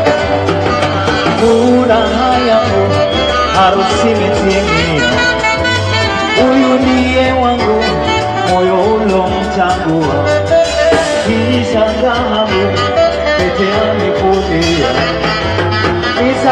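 Loud band music at a wedding dance: a repeating bass line under melody lines, with singing in places.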